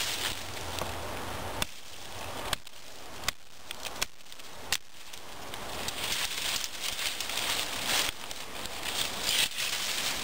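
Blind Horse Knives Pathfinder 1, a thick O1 carbon-steel Scandi-ground bushcraft knife, chopping into a green sapling: five sharp strikes between about one and a half and five seconds in, roughly one every three-quarters of a second.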